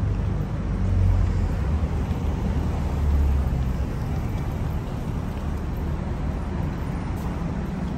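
City street traffic ambience: a steady hum of passing vehicles, with a deeper low rumble swelling about a second in and again around three seconds.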